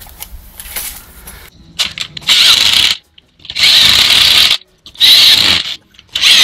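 Corded power drill run in four short bursts on a concrete anchor bolt, the trigger pulled and released about a second at a time.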